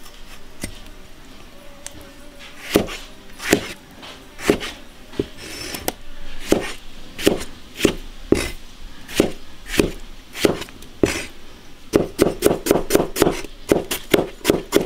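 Chinese cleaver chopping tomatoes into wedges on a thick plastic cutting board, the blade knocking on the board. The knocks come singly about once a second at first, then in a quick run of about five a second near the end as ginger is cut.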